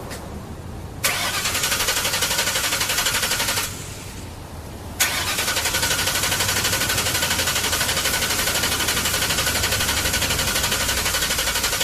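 Ford Thunderbird's starter cranking the engine in two tries, a short one about a second in and a longer one from about five seconds in, each an even, rapidly pulsing churn that stops abruptly. The engine does not catch: the car won't start.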